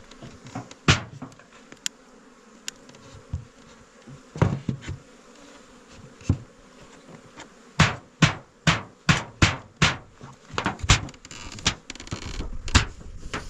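Honeybees buzzing around the hives, over a series of sharp knocks: scattered single ones at first, then a quick run of about ten at roughly three a second about eight seconds in.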